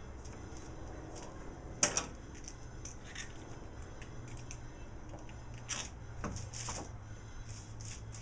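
Metal bar clamps being handled and set on a glued-up board: scattered clicks and rattles, the sharpest about two seconds in and a cluster near the end.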